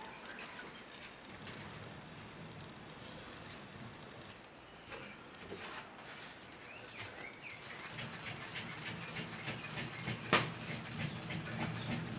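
Steady high-pitched insect chirring, with scattered light knocks and clatters of firewood being handled from about eight seconds in, the loudest a sharp knock about ten seconds in.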